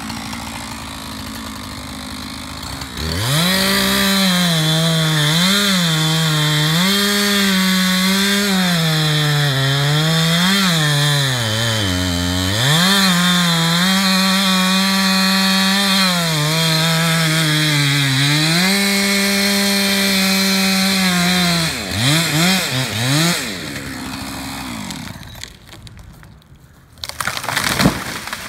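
Gas chainsaw revving up about three seconds in and cutting into wood, its pitch dipping and recovering again and again as the chain loads in the cut. A few quick revs let off near the end, followed by a brief loud noise.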